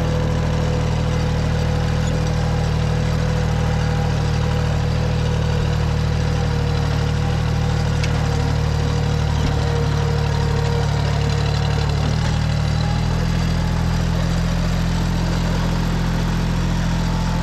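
Yanmar tractor's diesel engine running steadily, with a slight shift in pitch about twelve seconds in.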